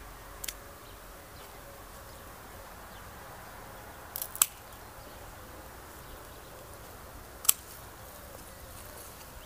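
Hand pruning shears snipping through grapevine canes: one sharp snip about half a second in, two quick snips just past four seconds, and another about seven and a half seconds in, over a faint steady insect buzz.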